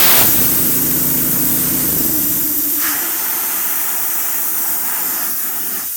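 Propane-fuelled 5.5 hp Honda engine running an air compressor, then shutting off about three seconds in. A steady hiss of escaping compressed air starts with a loud burst at the outset and carries on after the engine stops.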